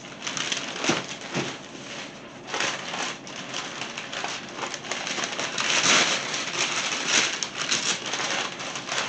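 Packing wrap being crinkled and torn off a boxed collectible figure, a dense run of crackling and rustling that gets louder in the second half.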